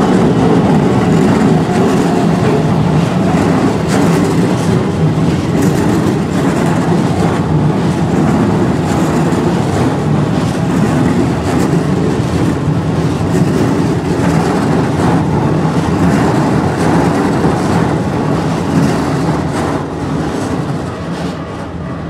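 Hokuso Railway 7500-series commuter train rolling past close by, its wheels clattering over the rail joints of a level crossing; the noise is steady and then eases off near the end as the train moves away.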